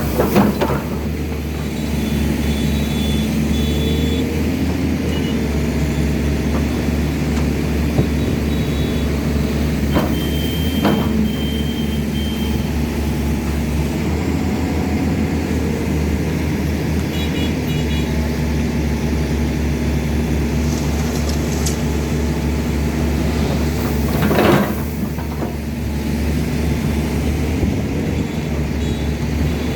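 Excavator's diesel engine running steadily under hydraulic load. A few sharp knocks break it near the start, about ten seconds in and, loudest, about 24 seconds in.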